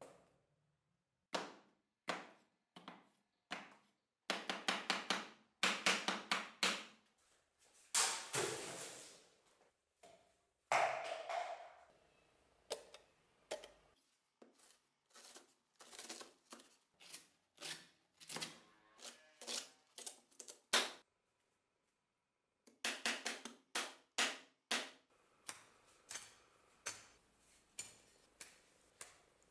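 A steel butcher's cleaver chopping through pumpkin and cabbage down onto a wooden cutting board: sharp chops, some single and some in quick runs of several strokes, a few with a brief ring from the blade.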